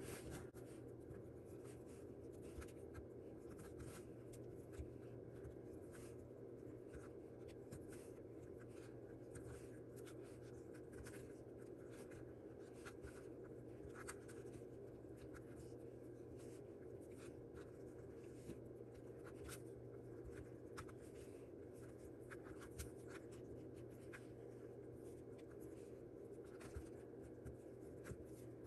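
Faint rustling and light clicking of yarn being wrapped by hand around the pegs of a flexible plastic loom, over a steady low hum.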